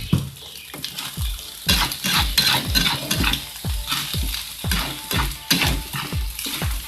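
Fried rice being stirred and tossed in a hot wok, the spatula scraping the pan in quick repeated strokes over sizzling oil.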